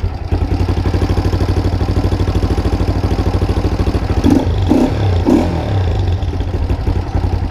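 Honda Titan 150 single-cylinder four-stroke engine idling through a newly fitted Gemoto aftermarket exhaust with a single muffler, just after its first start, with a loud, fast, even exhaust pulse. There are a few brief louder moments about four to five seconds in.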